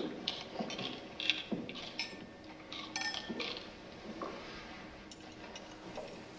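Dishes and cutlery clinking and scraping in a string of short, sharp sounds, busiest in the first half and thinning out toward the end.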